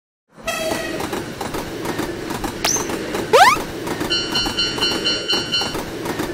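Train sound effects: a passing train with steady running noise and wheel clatter, starting abruptly after a brief silence, and a short rising whistle about halfway through, the loudest moment. A railroad crossing warning bell rings in a steady repeating pattern through the second half.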